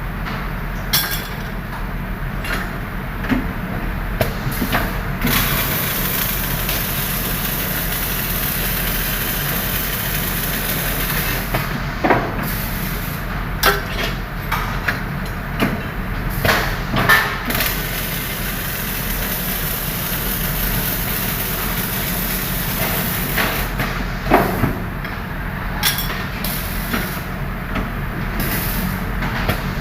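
Welding in a workshop: a steady hiss over a constant low electrical hum, broken by occasional sharp knocks, several of them between about 12 and 17 seconds in and another near 24 seconds.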